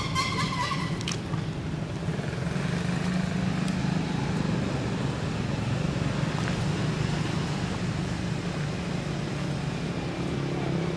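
Infant long-tailed macaque squealing in the first second, the high cry then breaking off. A steady low rumble runs underneath.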